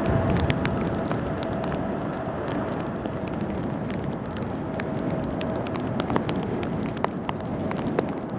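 Jet engine rumble from a Boeing 777-200ER's GE90 turbofans as the airliner climbs away after takeoff, a steady roar slowly fading with distance, with scattered light ticks over it.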